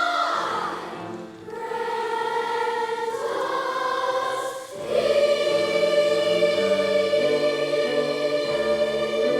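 A choir singing sustained chords, with the notes changing in steps; it dips briefly twice and swells fuller and louder about five seconds in.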